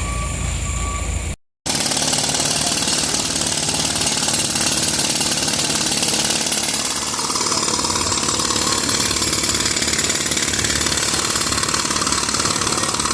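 A pneumatic jackhammer hammering steadily at a street repair site, breaking up pavement. In the first second, before a cut, a truck's engine runs with its reversing beeper sounding.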